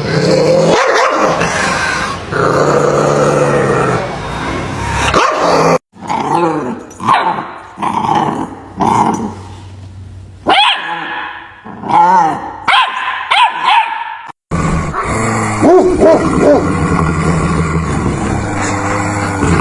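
Dogs barking and growling in three spliced sound-effect clips, each cut off suddenly. The middle clip is a run of short, separate barks and yips; the first and last are denser, continuous barking and growling.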